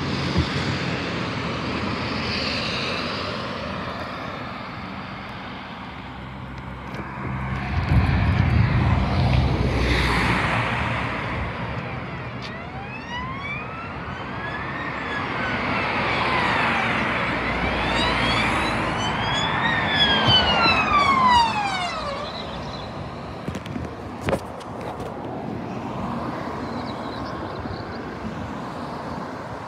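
Road traffic passing, with a loud low rumble of a passing vehicle about 8 to 11 seconds in, then an emergency vehicle's wailing siren rising and falling in pitch for about ten seconds.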